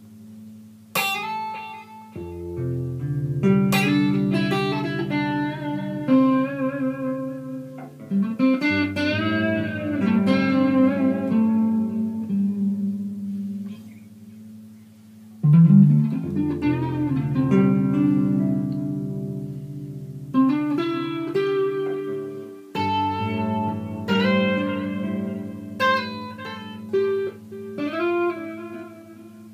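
Dirtbox Chicane box-bodied guitar being played: picked melody notes over ringing low bass notes, the phrase starting over about every seven seconds.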